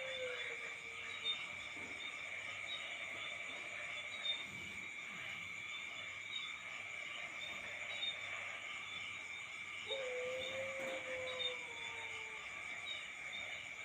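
Steady chorus of night insects with faint repeating chirps. About ten seconds in, one long low whistling call from an unidentified animal holds its pitch, then slides slightly down before stopping.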